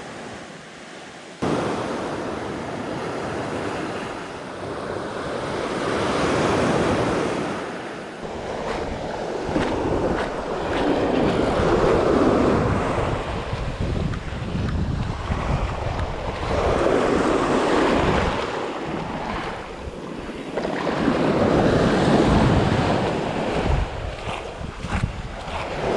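Sea waves breaking and washing up on a beach, swelling and falling about every five seconds, with wind buffeting the microphone. The sound cuts in suddenly about a second and a half in.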